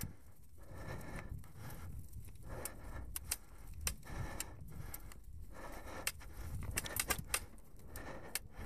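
Mountain bike rattling along a leaf-covered dirt trail: chain and frame clattering in irregular sharp clicks over a low rumble of tyres rolling.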